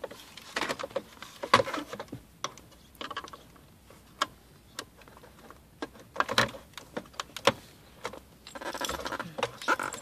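Irregular plastic clicks, knocks and rattles of a 2006 Toyota 4Runner's climate control panel being handled after it has been pulled out of the dash. The sounds come in three clusters: near the start, about six seconds in, and near the end.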